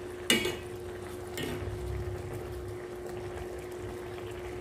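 Milkfish simmering in coconut milk in a pan over a gas flame, the liquid bubbling. A ladle knocks against the pan about a third of a second in, and more lightly again about a second and a half in. A steady hum runs underneath.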